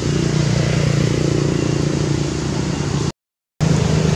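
Steady low hum of a running motor, broken by a brief dropout to silence about three seconds in.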